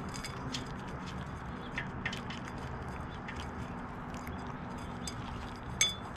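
California ground squirrels eating a seed and nut mix from a feeder dish: scattered small crunches and clicks of seeds being cracked and chewed, with one sharper clink near the end.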